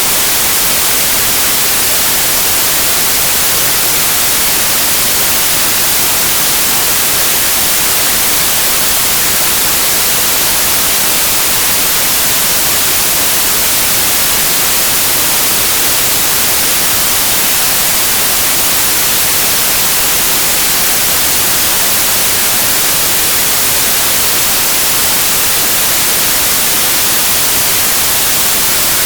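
Steady, unbroken white noise: an even, loud hiss that is strongest in the treble and never changes.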